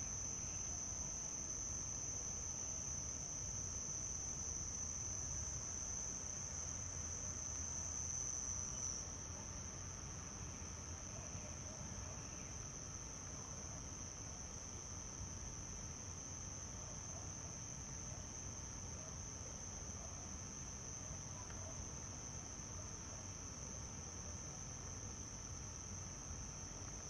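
Male house cricket (Acheta domesticus) stridulating at its burrow entrance, rubbing its forewings together: a steady, high-pitched song that drops slightly in level about nine seconds in.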